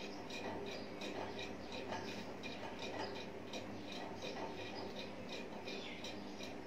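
Faint, even ticking, about four ticks a second, over a low steady hum.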